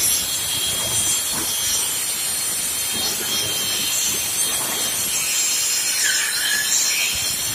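Angle grinder fitted with a saw disc, running at speed and cutting through a tree branch: a steady high-pitched whine over the rasp of the cut.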